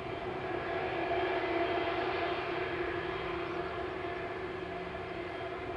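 Boeing 767-300 jet engines heard from afar as the airliner rolls along the runway after landing: a steady jet roar with a held whine. It swells about a second or two in and then slowly eases off.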